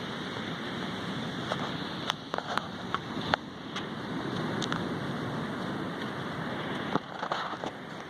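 Sea waves washing on the shore: a steady rush of surf that swells a little in the middle, with a few sharp clicks scattered through it.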